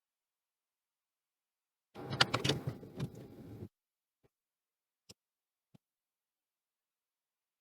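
A short burst of clattering and clicking, like small metal tools or parts being handled and set down on a workbench, followed by three faint single clicks.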